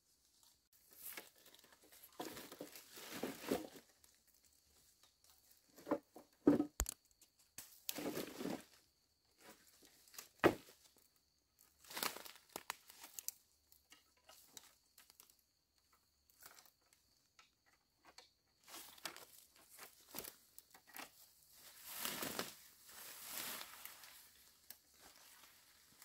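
Dry leaves and undergrowth rustling and crunching in irregular bursts as dead sticks are gathered and handled by hand. A few sharp snaps or knocks of dry wood come about six and ten seconds in.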